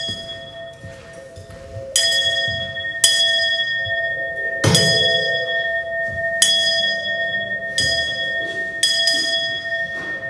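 A small hand bell struck about six times at uneven intervals, each strike ringing on with bright high tones; the strike about halfway through is the loudest, with a low thud. A steady two-note drone sounds underneath throughout.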